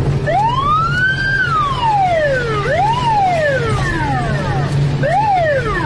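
Police car siren switched on, wailing up and down in pitch: one long rise and fall, then two shorter sweeps, with the patrol car's steady drone underneath.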